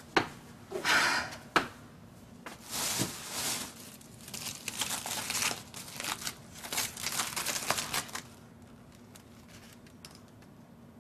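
Paper and patient chart folders being handled and stacked on a desk: paper rustling and shuffling with a few sharp knocks in the first two seconds. The handling stops about eight seconds in.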